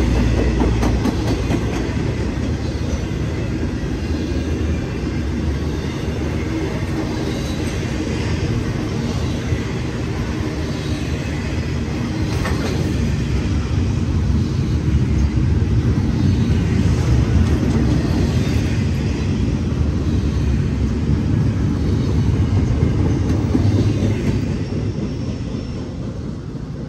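Intermodal freight train's double-stack well cars rolling past, a steady rumble and clatter of steel wheels on rail. The sound fades near the end as the last car goes by.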